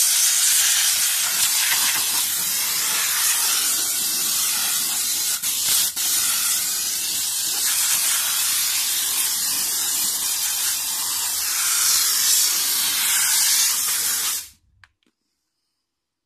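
Handheld steam-cleaner gun blasting a jet of steam onto a car's alloy wheel and tyre: a steady loud hiss with two brief dips about a third of the way in. It cuts off suddenly near the end.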